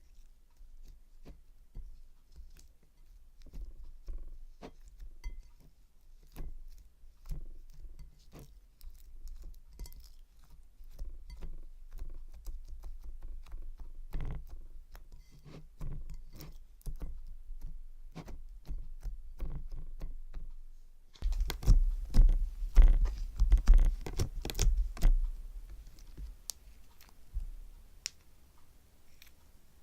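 Crunchy gold-leaf slime being squished and poked by hand: a run of small clicks, pops and crackles that grows louder and denser about two-thirds of the way through.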